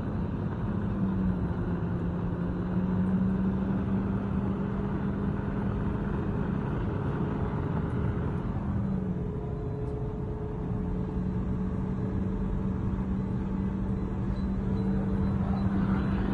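Car engine and road noise heard from inside a moving car: a steady engine drone that dips slightly in pitch a couple of times, over tyre and wind noise.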